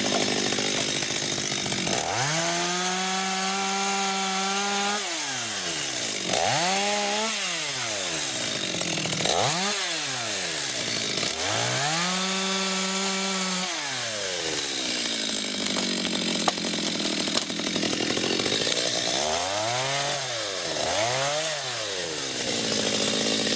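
Two-stroke chainsaw felling a small tree, cutting through the trunk near the base. The engine is revved up and held at full speed for about two seconds, twice, and between cuts it gives several shorter revs that drop back toward idle.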